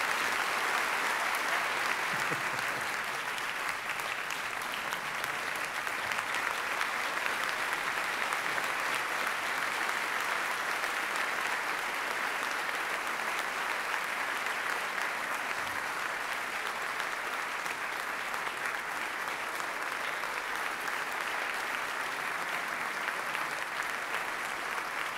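A large audience applauding steadily for the whole stretch, loudest in the first few seconds.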